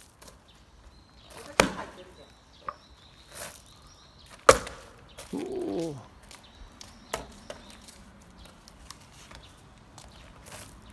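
Axe blows splitting firewood: two sharp strikes about three seconds apart, the second the louder. A brief falling tone follows just after the second strike, then a few light knocks.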